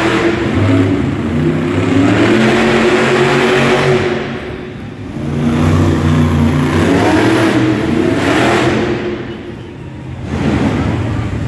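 Monster truck's supercharged V8 engine revving hard as the truck drives, easing off briefly about four seconds in and again near ten seconds, then climbing back up each time.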